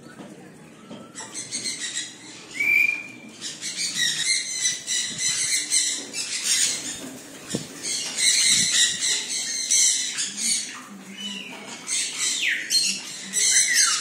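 A flock of sun conures screeching, harsh calls overlapping without a break from about a second in, mixed with a few whistled pitch glides, one falling near the end.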